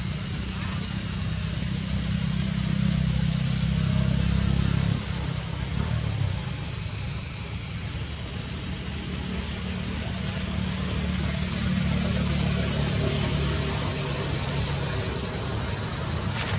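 A steady, high-pitched insect chorus, with a low rumble underneath that eases off near the end.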